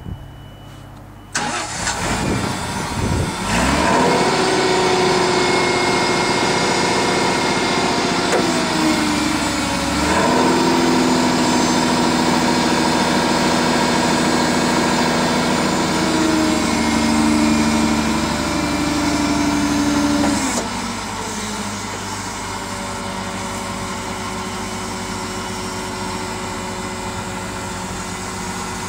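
1997 Cat GP40 propane forklift's engine cranking and catching about a second in, then running steadily. From about ten seconds in, it runs louder with a steady whine from the hydraulic pump as the mast raises the forks; this stops about twenty seconds in, and the engine runs on more quietly.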